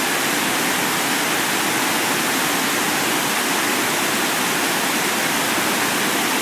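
Steady hiss of FM receiver static: an RTL-SDR dongle's audio, demodulated as wideband FM in SDR++, tuned to 100.0 MHz where no station is on the air.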